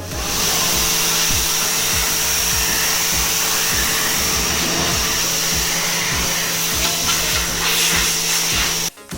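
A small electric motor-driven machine running steadily, with a loud rushing air noise over a steady hum, cutting off suddenly near the end.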